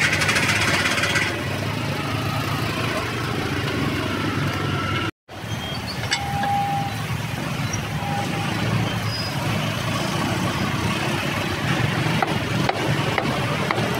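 Steady street traffic noise, with a few light knocks of a cleaver chopping roast pork on a wooden chopping block. The sound cuts out for an instant about five seconds in.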